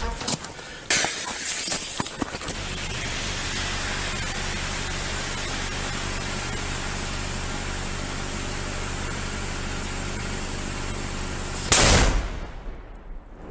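A steady hiss for several seconds while the fuse of a large homemade flash-powder salute burns, then one very loud explosion near the end that dies away over about a second.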